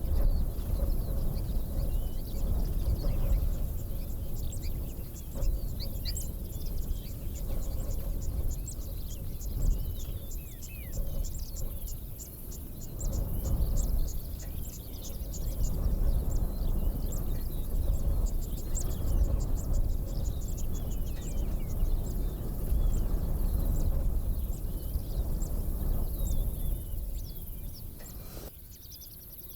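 Savanna ambience: birds chirping and trilling and insects chirring, over a loud, uneven low rumble that eases off near the end.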